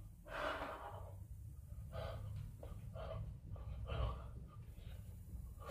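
A man breathing hard from exertion during calisthenics: a series of short, forceful breaths, about one every half second to a second, the first the loudest.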